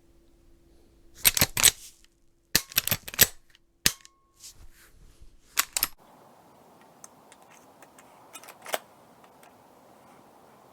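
A rifle's action worked by hand on an empty chamber: several groups of sharp metallic clicks and clacks in the first half, then a few fainter clicks.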